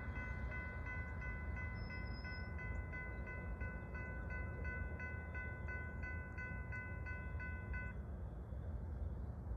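Distant railroad grade crossing bell ringing, about two strokes a second, stopping about eight seconds in, over low wind rumble on the microphone.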